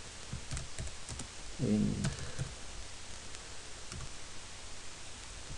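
Computer keyboard being typed on in sparse, separate key clicks, with a brief murmur of voice about a second and a half in.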